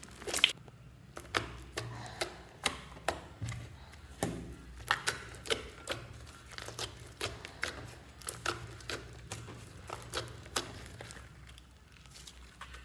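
Glossy slime being squeezed and poked with fingers, giving a run of sharp, wet clicks and pops, about two a second, that stop near the end.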